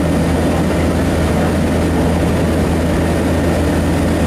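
Steady drone of a propeller airliner's engines in flight, heard inside the cabin: a constant low hum under an even rush of air noise.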